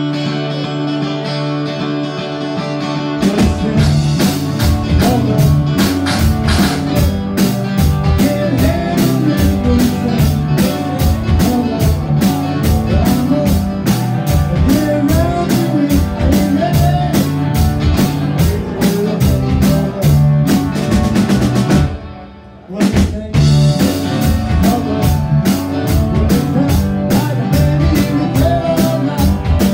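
Live rock band playing a cover song on electric guitars, bass guitar and drum kit, amplified and loud. Held chords ring without drums at first, and the drums come in about three seconds in. About three-quarters of the way through the band drops out briefly, then comes straight back in.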